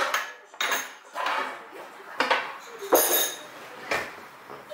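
A handful of sharp clinks and clatters of small hard objects being knocked or handled, about five in all, spread irregularly.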